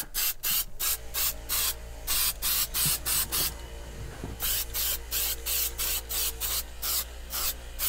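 Aerosol spray adhesive sprayed in short rapid bursts, about three or four a second, with a pause of about a second halfway through.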